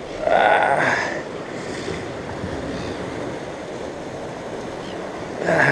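Sea surf washing against the rocks below: a steady rushing, with a louder surge about half a second in and a brief louder sound with a curving pitch near the end.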